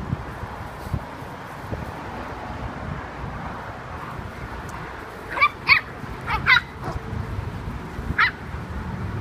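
Pumi puppies yipping in play: five short, high-pitched yips, a quick pair about five and a half seconds in, another pair a second later, and a single one near the end.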